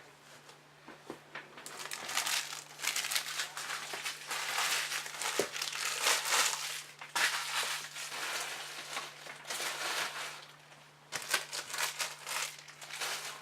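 Empty foil trading-card pack wrappers being crumpled and crinkled by hand in two stretches, a long one from about two seconds in and a shorter one near the end.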